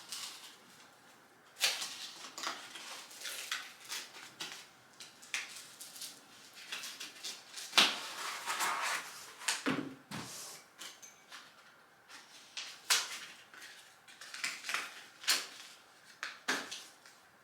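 Irregular clicks, knocks and short scrapes of plastic and metal stroller parts being handled and fitted together, with a few sharper clacks.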